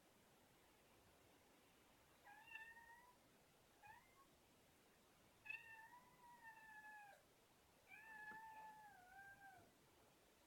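A domestic cat meowing four times, calling to be fed: a short meow, a very brief one, then two long, drawn-out meows.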